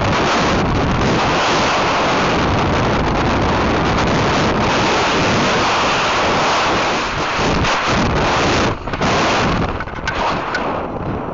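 Wind rushing over the microphone of a camera riding on a descending model rocket: a loud steady rush that drops and turns uneven about ten seconds in.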